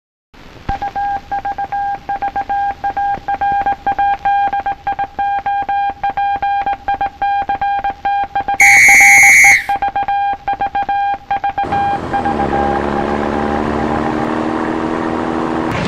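Morse code beeps from the RKO Radio Pictures opening logo: a single steady tone keyed rapidly in dots and dashes, which spell out "A RKO Radio Picture". About nine seconds in a much louder, higher buzz sounds for about a second, and about twelve seconds in the beeping gives way to music rising in pitch.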